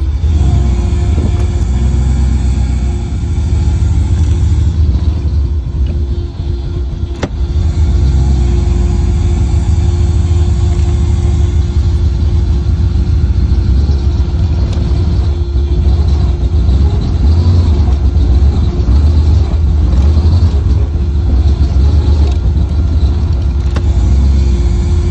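Engine of an LS-swapped boat, a V8, running with a steady low rumble and a constant hum over it. The loudness dips briefly around three seconds in and again around six seconds in.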